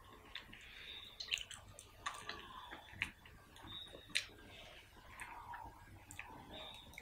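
Close-up mouth sounds of someone eating mutton curry by hand: wet chewing and lip smacks, with a string of sharp clicks.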